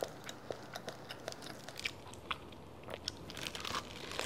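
Close-up chewing of soft, chewy rice paper salad (bánh tráng trộn): a run of small, irregular mouth clicks and smacks.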